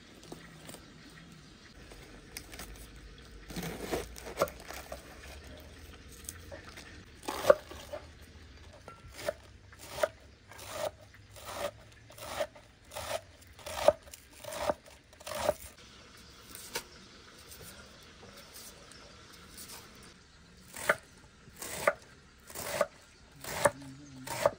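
Kitchen knife chopping iceberg lettuce on a wooden cutting board: crisp, even strokes about one every 0.7 seconds, a pause, then a second run of five strokes near the end. Before the run there are a couple of separate louder crunches.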